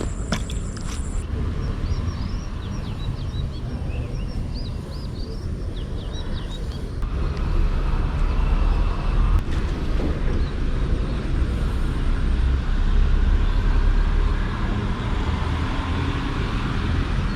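Outdoor ambience at a river bank: a steady low rumble that grows louder about seven seconds in, with a few short high bird chirps in the first few seconds.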